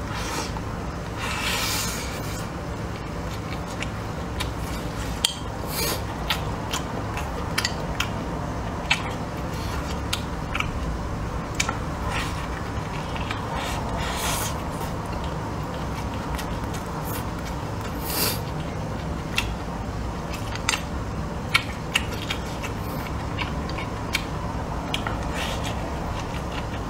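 Close-up eating sounds: chewing mouthfuls of rice and stir-fry, with sharp clicks of wooden chopsticks against a plate and a few louder mouth noises, over a steady low hum.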